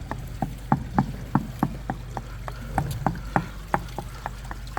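Rapid, even tapping on travertine patio tiles, about three or four taps a second, sounding them for hollow spots where the mortar did not bond.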